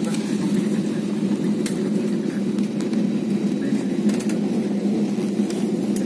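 Steady low rumble of an airliner's jet engines and air heard from inside the passenger cabin, with a few faint clicks.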